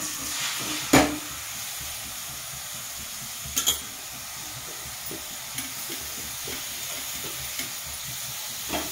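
Grated bottle gourd sizzling with a steady hiss as it is tipped into hot ghee in a steel kadhai. There is a sharp clank about a second in and a smaller one a little later, from the bowl and spoon against the pan.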